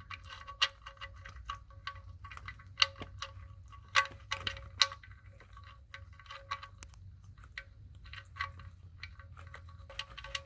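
Irregular small metallic clicks and ticks, each with a faint ring, as the oil drain plug is threaded back into the engine's oil pan by hand.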